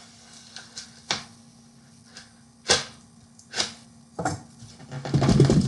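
A dull knife scraping and cutting along the seam of a styrofoam box: a few separate sharp scrapes, then a longer, louder rubbing scrape of the foam about five seconds in.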